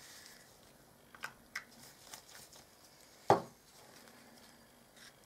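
Gloved hands handling a small plastic cup of resin and a pigment bottle on a paper-covered table: a couple of faint clicks and light rustling, then one sharp knock about three seconds in.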